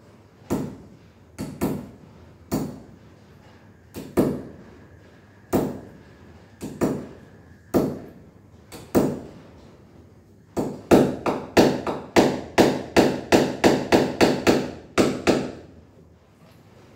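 A hammer driving a nail into a wall: about ten separate blows spaced roughly a second apart, then a quicker run of about fifteen blows at roughly three a second, stopping a little before the end.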